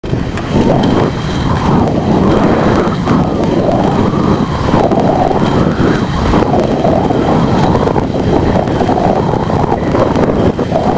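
Steady rumble of wind on the microphone, mixed with the rolling noise of inline speed skate wheels on asphalt.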